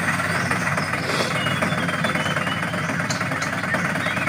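Radio-controlled MAN dump truck driving up a dirt track, its engine sound a steady, even rumble with a low pulsing chug.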